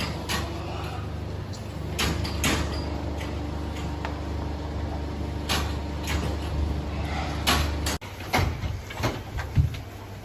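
A steady low machine hum with scattered knocks and clatters over it. The hum stops abruptly about eight seconds in, leaving irregular knocks.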